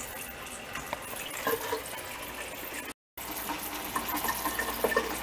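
Steady hiss of running water with a few faint ticks; the sound drops out completely for a moment about three seconds in.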